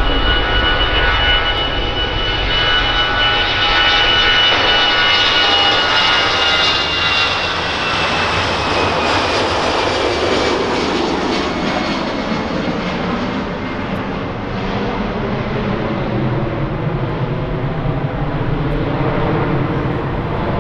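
Airbus A320 jet airliner's engines at takeoff power: a steady high whine over a broad rushing noise as the aircraft rolls, lifts off and climbs away. The whine drops in pitch about eight seconds in as the aircraft passes.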